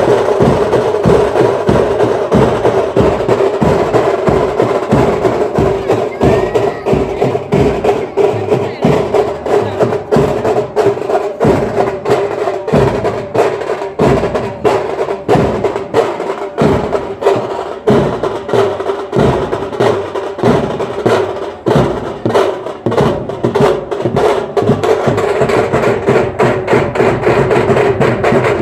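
Rapid, dense drumming on timki (small paired kettle drums), sharp strokes coming many times a second, over a steady held tone.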